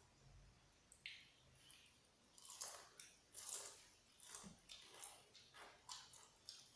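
A person chewing fried chicken, a run of chews about two a second starting some two seconds in.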